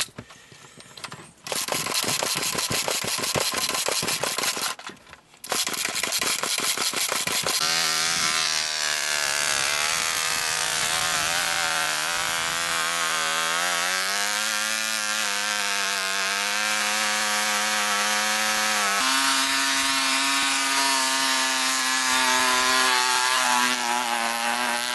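Cox .049 glow-plug model engine of a 1973 Cox Ski-Doo snowmobile starting: two rough, rattly bursts with a short break between them, then it catches and runs with a high, buzzy whine. The pitch wanders and then steps up about three-quarters of the way through.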